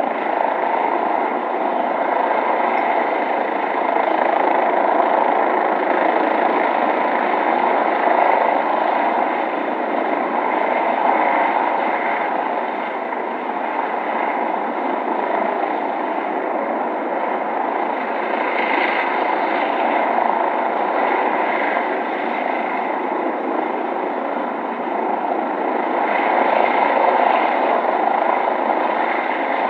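City ambience dominated by a police helicopter flying overhead: a steady wash of rotor and engine noise over the city, swelling slightly at times.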